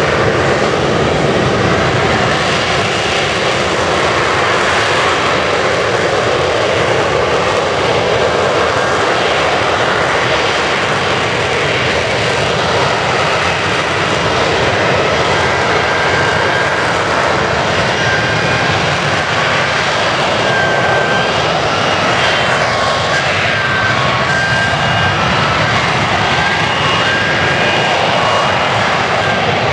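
F-35B Lightning II hovering on its F135 engine and shaft-driven lift fan, a loud, steady jet roar. In the second half a faint high whine comes and goes over it.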